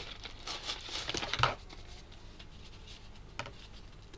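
Rustling and crinkling of parcel packaging and a small organza bag being handled, in a quick cluster over the first second and a half and loudest about a second and a half in, then one light tap about three and a half seconds in.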